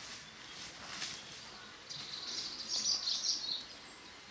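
Songbird singing a high, rapid warbling phrase from about two seconds in, over faint steady outdoor background noise.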